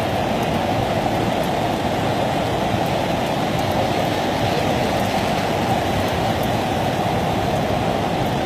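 Floodwater rushing steadily where it has overflowed a bridge: a continuous, even rush of water with no breaks.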